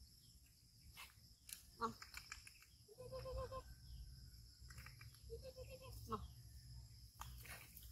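Faint squeaks and trilling whimpers from young animals, puppies or a baby monkey: a short falling squeak about two seconds in, a trilling call about three seconds in, another about five seconds in, and a further falling squeak soon after, with light rustling clicks.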